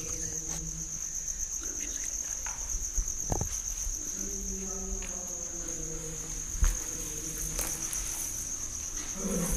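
Insects chirring in one steady, unbroken high-pitched drone, with a single thump about two-thirds of the way through.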